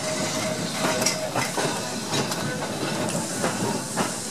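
Tram running along the track, heard from its open top deck: a steady running noise with a series of sharp clicks and knocks from the wheels on the rails, and a faint steady tone in about the first second and a half.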